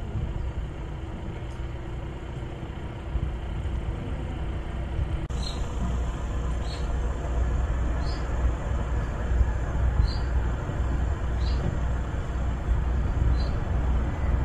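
Steady low outdoor rumble. From about five seconds in, a short high chirp repeats every second or two.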